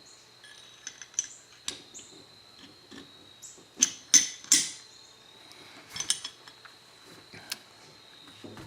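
Scattered clicks and short scrapes of a Kel-Tec P15 pistol's parts being handled as the pistol is reassembled, with a cluster of three sharp clicks near the middle.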